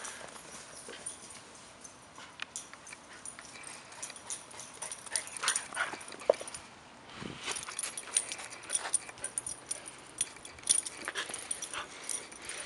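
A dog whimpering and yipping in short, scattered bursts, excited over a game of frisbee fetch, with many small scuffs and rustles of movement over dry grass and leaves.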